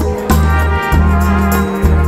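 Background music with a heavy, steady bass line, a new bass note roughly every two-thirds of a second, and instruments playing over it.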